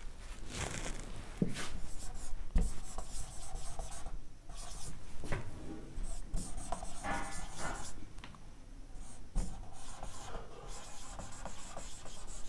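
Marker pen writing on a whiteboard: a run of short rubbing strokes and ticks as the letters are formed, with brief pauses between words.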